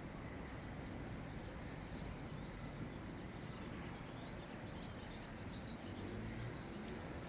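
Faint outdoor ambience: a steady low background noise with a few short, high rising chirps about every two seconds, and a flurry of quick high chirps near the end.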